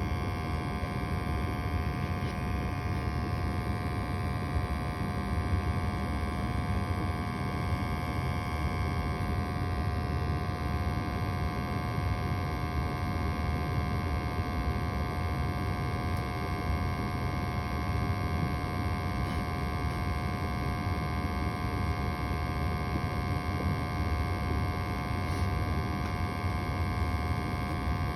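21-year-old gas furnace running with its blower motor on: a steady rumble with a constant hum over it, unchanging throughout.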